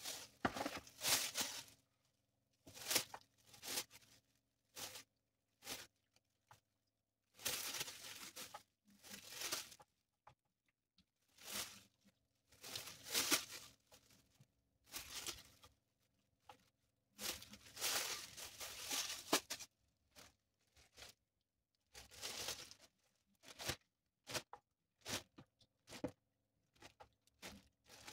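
Thin clear plastic bags crinkling and rustling as raw chicken pieces are handled and packed into them, in irregular bursts with short pauses.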